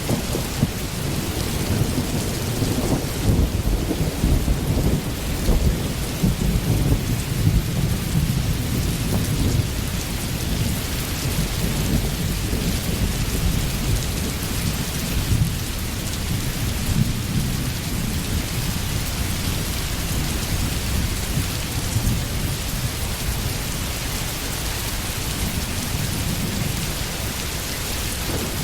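Steady rain with a low, rolling rumble of thunder underneath, the rumble heaviest in the first third.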